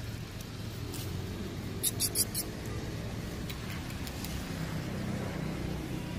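Four short, high-pitched squeaks in quick succession about two seconds in, over a steady low hum.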